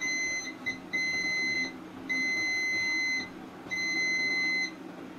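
Digital multimeter's continuity buzzer beeping as its probes touch components on a phone circuit board. There are five high-pitched beeps, two short ones and then three of about a second each. Each beep signals a near-zero-ohm path, as the 0.0000 reading shows.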